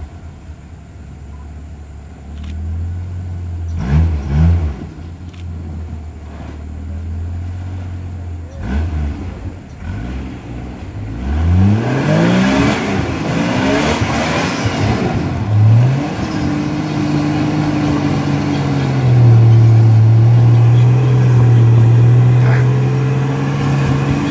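Rock-crawler Jeep's engine idling low with a couple of short blips, then revved up about halfway through as it climbs the rock ledge, with a rush of noise, and held at a steady, louder, higher pitch to the end.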